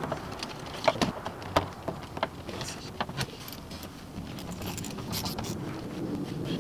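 Irregular clicks and metal clinks of a hand tool fastening the top mounting screw of an E53 BMW X5 door mirror, with a few sharper knocks about one, one and a half, and three seconds in.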